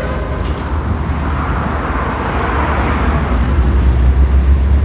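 A train passing close by: a loud, steady rumble with a deep engine drone and rushing wheel-on-rail noise that swells in the middle. The train horn's last blast cuts off just as it begins.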